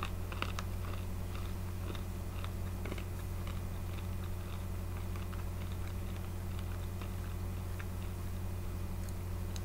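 A person chewing crunchy salted honey-roasted peanuts, faint crunches coming thickest in the first few seconds, over a steady low hum.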